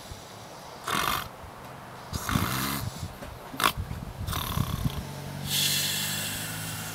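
Several people snoring in their sleep: irregular snores of different lengths, the longest and loudest a drawn-out buzzing snore near the end.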